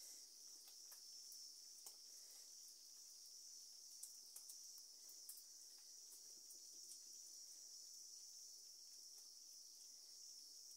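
Near silence, with a faint steady high-pitched insect trill and a few faint clicks.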